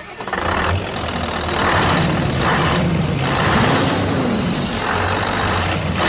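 Heavy truck engine sound effect running steadily, with repeated hissing surges over a low hum.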